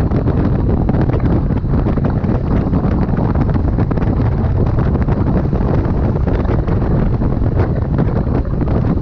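Loud, steady wind buffeting the microphone, a rough rumble heaviest in the low end.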